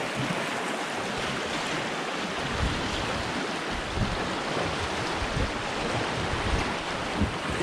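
Fast river water rushing and splashing through a riffle around a kayak, with wind buffeting the microphone in low, irregular rumbles.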